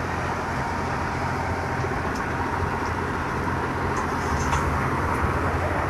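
Belt-driven stationary threshing machine (patoz) running steadily under load, a constant low mechanical drone from its drive and drum, with a few faint ticks in the middle.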